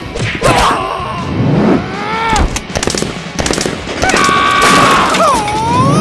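Cartoon sound effects over background music: squeaky, gliding voice-like sounds, a rapid rattle of clicks around the middle, and a held whistle-like tone that dips and then rises near the end.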